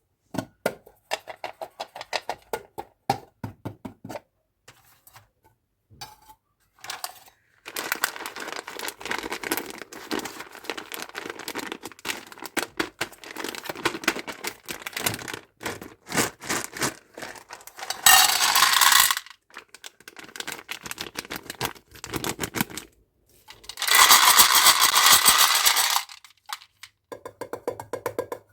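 Candy and toy packaging handled by hand: quick clicking taps at the start and end, and crackling plastic in between. Past the middle and again near the end come two loud hissing bursts, the first about a second long and the second about two seconds.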